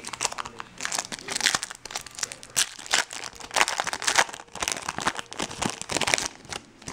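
Foil wrapper of a baseball card pack being torn open and crumpled by hand: an irregular run of crinkling and crackling that stops near the end.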